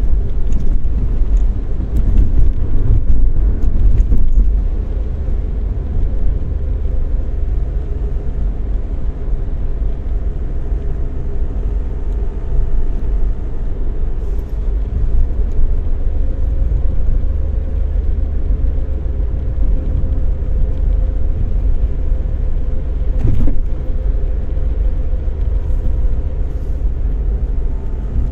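Car driving, heard from inside the cabin: a steady low engine and road rumble, with a single short knock about 23 seconds in.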